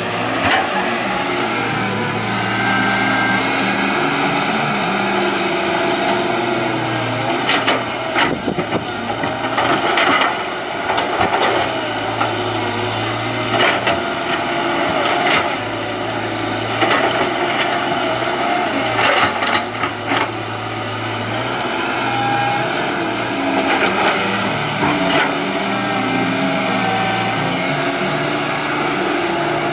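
CAT 312D hydraulic excavator's diesel engine running steadily under load as it digs, with repeated knocks and scraping from the bucket working the soil, most of them through the middle of the stretch.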